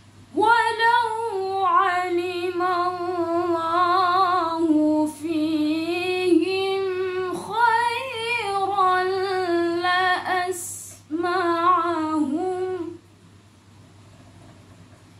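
A woman's voice reciting the Quran in the melodic tilawah style, with long held, ornamented phrases that bend in pitch. It starts about half a second in, breaks briefly three times, and stops about two seconds before the end.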